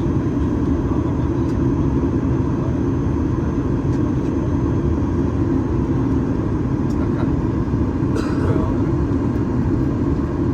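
Steady cabin drone of a Boeing 737 MAX 8-200 in flight: its CFM LEAP-1B engines and the airflow over the fuselage make an even low rumble. A few faint clicks sound within it.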